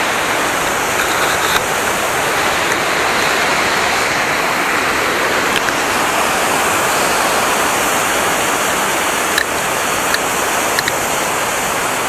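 Waterfall cascading over boulders: a steady, loud rush of falling water, with a few small clicks in the last few seconds.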